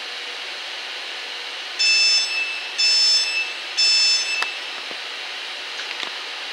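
Three loud, high-pitched beeps about a second apart, each lasting under a second, over the steady noise of a Freightliner Class 70 diesel locomotive hauling container wagons. A couple of faint knocks follow.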